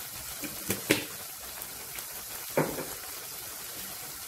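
Szechuan chilli sauce sizzling in oil in a pan, a steady hiss. There are two short knocks, about a second in and again about two and a half seconds in.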